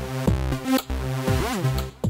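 Electronic background music with a steady drum-machine beat and synth notes.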